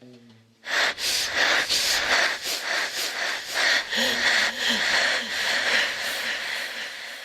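Loud amplified heavy breathing: hissy, wheezing breaths pulsing about two to three times a second, starting just under a second in after a faint low note.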